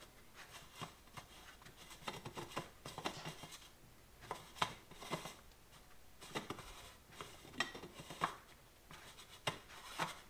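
Metal end cap being screwed by hand onto the threads of an anodized Canton Accusump oil accumulator cylinder: quiet, irregular scraping and clicking of the threads and of hands on the metal.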